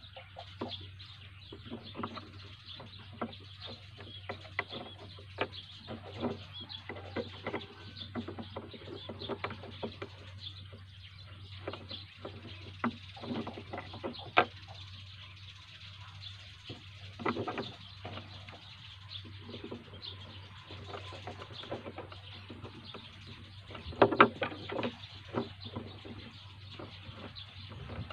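Small plastic trigger parts being handled and pressed together on a wooden table: irregular light clicks and taps, with the sharpest knocks about 14 seconds in and again around 24 seconds. Birds chirp in the background over a steady low hum.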